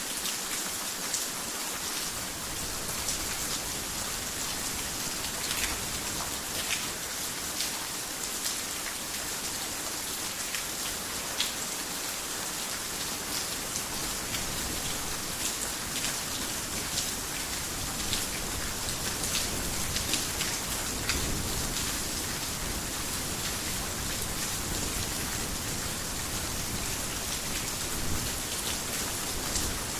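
Heavy rain falling steadily on a roof: a dense, even hiss with individual drops ticking through it. A low rumble fills in during the second half.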